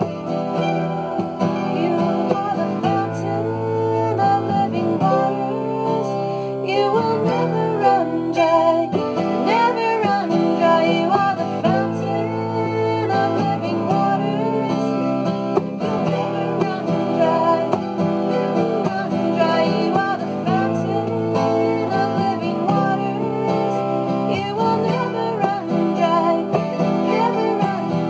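Acoustic guitar and mandolin playing together: steady strummed chords under a picked melody line that moves around on top.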